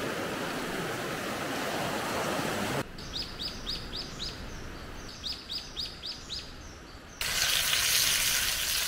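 Rushing water of a muddy river swollen by rain; after a cut, a bird calling in two quick series of short descending chirps, about four a second; then, near the end, food sizzling in a pan over a wood fire.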